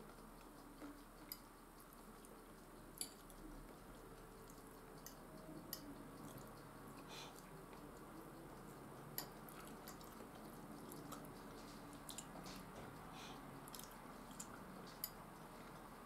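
Faint clicks and taps of a metal fork against a ceramic bowl, about a dozen scattered light strikes, over quiet chewing.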